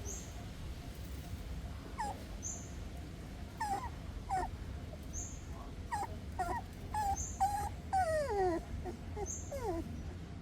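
Puppies whimpering and whining in a string of short, high cries beginning about two seconds in, several sliding downward in pitch near the end.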